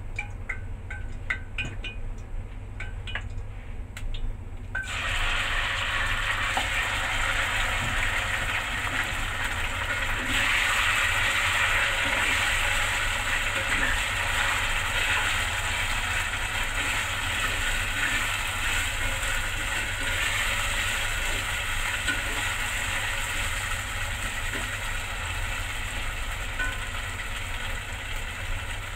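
Marinated beef slices hit hot oil in a stainless steel pan about five seconds in and sizzle steadily while being stir-fried with chopsticks. Before that there are only a few faint ticks, all over a steady low hum.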